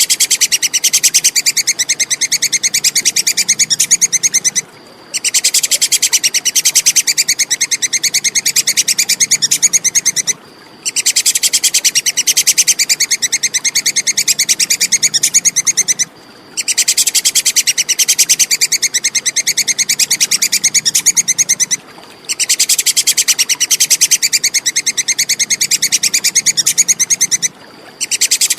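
Squirrel (tupai) giving its rapid, high-pitched 'kekes' chattering call in evenly repeating bouts of about five seconds, each broken by a short pause.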